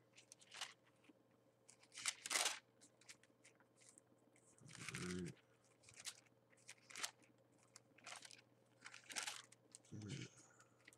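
Faint, irregular paper rustles of book pages being turned while a passage is looked up, with two brief low murmurs about halfway through and near the end.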